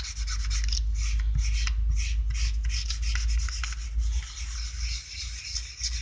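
A pounce pad of dry white pigment rubbed quickly back and forth over a pricked paper pattern on a wooden cabinet, a rapid series of scratchy rubbing strokes, pushing pigment through the pin holes to transfer the design. A low rumble runs underneath.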